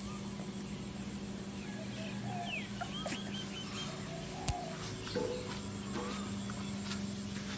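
Scattered short animal calls over a steady low hum, with one sharp click about four and a half seconds in.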